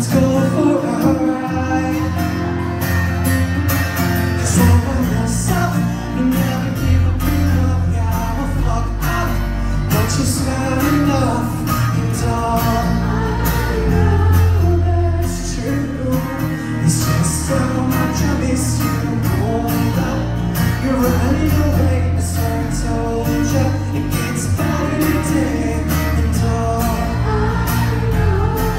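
Live band music heard from the crowd: a man singing over strummed acoustic guitar, with a heavy, steady bass underneath.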